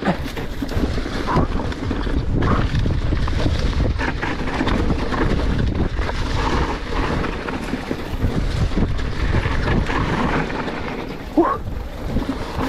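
Wind buffeting the microphone and e-mountain bike tyres rolling fast over a leafy dirt trail on a descent, with scattered knocks and rattles from the bike. A brief rising squeak comes near the end.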